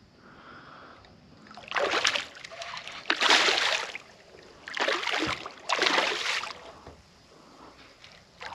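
A hooked barramundi thrashing at the surface beside the boat, four splashes in quick succession over a few seconds.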